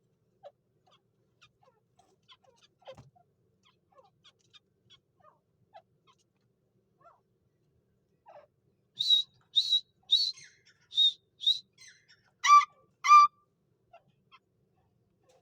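Grey francolin calling: faint scattered chirps, then about nine seconds in a run of sharp high notes about two a second, ending with two louder, lower calls.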